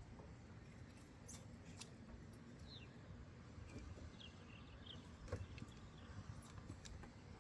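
Near silence, with faint scattered clicks and rustling of hands working around the battery box and wiring in a truck's engine bay, and a few faint high chirps in the middle.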